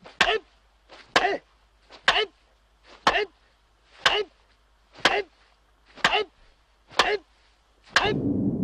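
Wooden practice sword striking an upright wooden post in a steady rhythm, about once a second: nine hard knocks, several preceded by a light tap. Music with a low rumble comes in near the end.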